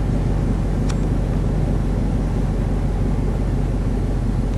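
Steady low drone of a vehicle engine running at idle, even and unchanging, with one faint click about a second in.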